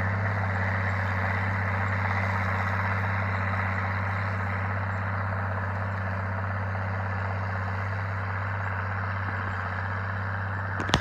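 International Harvester 5288 tractor's six-cylinder diesel engine running steadily under load while pulling a plow through corn stalks, a low steady drone that slowly grows fainter as the tractor moves away. A short click comes just before the end.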